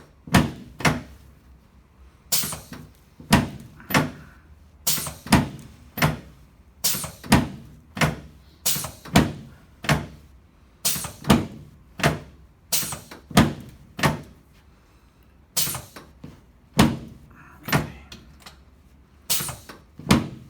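A run of quick chiropractic adjusting thrusts on the sacroiliac joints and lower back of a patient lying face down, each thrust giving a sharp thud from the treatment table. There are about one or two thuds a second, often in pairs or threes, all through.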